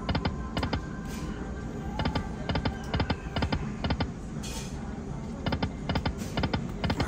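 Slot machine sound effects: runs of quick electronic ticks in little groups of three, several groups a second, with a couple of short pauses, over casino background noise.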